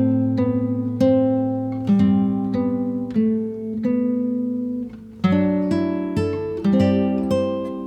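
Background music: acoustic guitar playing plucked notes and chords at an easy, regular pace.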